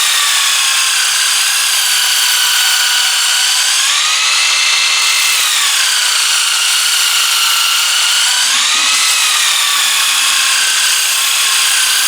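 Power tool spinning an abrasive sandpaper disc, steadily whining as a knife blade is ground against it to raise a burr. The whine shifts up in pitch and back down twice, about four and nine seconds in.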